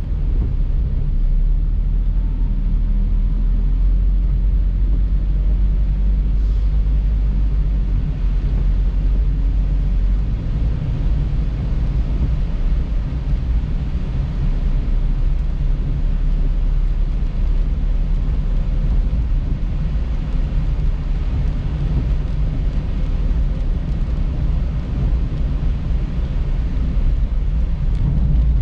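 Car driving: a steady low engine and road rumble with a constant hiss of tyre and road noise. The low drone shifts about ten seconds in.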